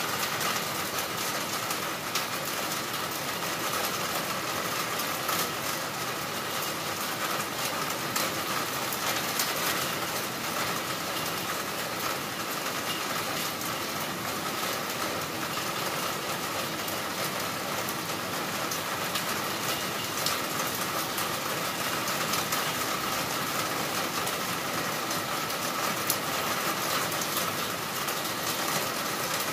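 Heavy rain pouring steadily: a constant rushing hiss dotted with many fine pattering drops, during a thunderstorm with gusty wind.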